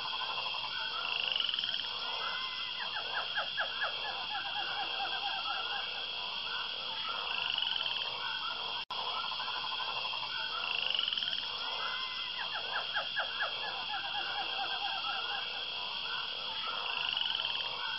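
A night chorus of frogs croaking, with runs of rapid calls coming every few seconds over a steady high trill. The sound breaks off for a moment about nine seconds in.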